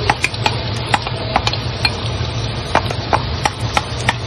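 Chopped onions tipped into hot oil with cumin seeds in a pot and stirred with a wooden spatula: irregular clicks and taps of the spatula against the pot over a sizzle, with a steady low hum underneath.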